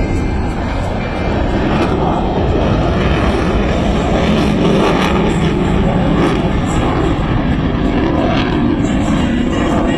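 Loud, steady noise of military jet aircraft flying past, growing louder about a second or two in and then holding.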